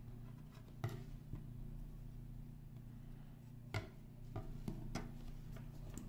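Small hand tools and electronic components handled on a workbench: a few sharp clicks and taps, the clearest about a second in and just under four seconds in, over a steady low hum.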